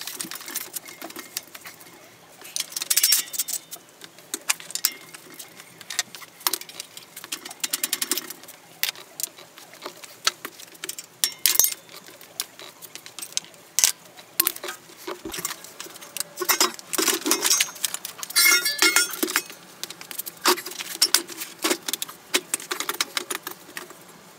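Irregular metal clanks, clicks and rattles of a Kawasaki KDX80 dirt bike's engine, exhaust pipe and frame parts being worked loose by hand. There are louder spells of rattling about three seconds in and again around two-thirds of the way through.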